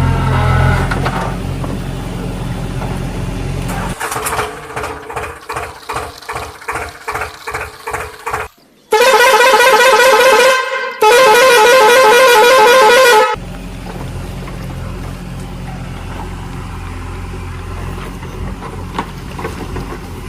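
A vehicle horn sounds two long, loud blasts with a wavering pitch about halfway through. Around them an engine runs steadily, with a stretch of rhythmic chugging of about two beats a second just before the horn.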